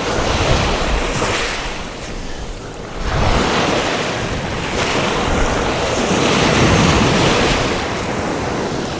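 Surf breaking and washing in, with wind buffeting the microphone. The wash eases off about two seconds in, then swells again from about three seconds and peaks a few seconds later.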